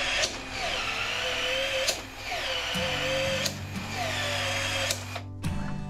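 Cordless PEX expansion tool widening the end of a PEX pipe to take a fitting: three motor cycles in a row. Each opens with a whine that drops in pitch, then holds steady and ends in a sharp click.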